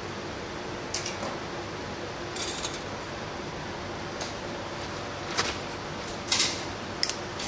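Small hand tools and wire being handled at a workbench: a handful of short clicks and scrapes, spread over the few seconds, over a faint steady hum.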